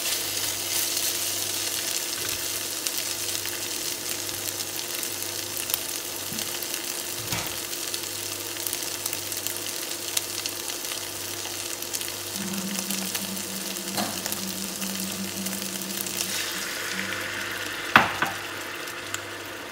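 Beef strips sizzling steadily in a hot nonstick frying pan, stirred at first with a wooden spatula. Near the end half a cup of water goes into the pan with a sharp knock, and the sizzle then quietens.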